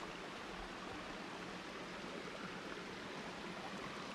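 A small rocky creek runs over stones with a steady, low babble of flowing water.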